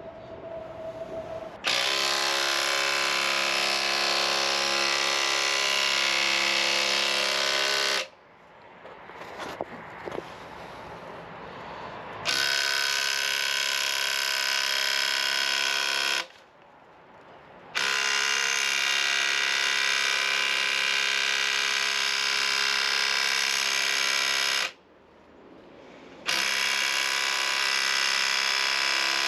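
Impact wrench turning the screw of a ball joint press, pressing an upper ball joint into a control arm. It runs in four long stretches of several seconds each, with short pauses between.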